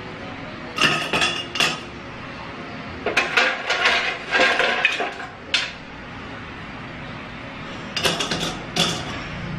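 Ice cubes tipped from a bowl into a tall glass, clattering and clinking against the glass in three bursts: about a second in, again for a couple of seconds from about three seconds, and once more near the end.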